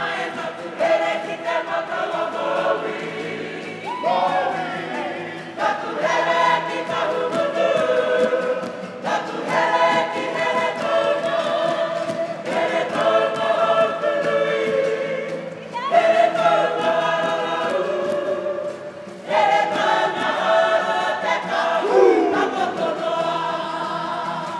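Kapa haka group of women and men singing together, a choral song in phrases a few seconds long with short breaks between them.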